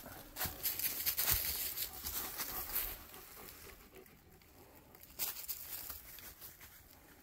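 Footsteps crunching through dry fallen leaves for the first three seconds or so, then stopping; a single short rustle of leaves about five seconds in.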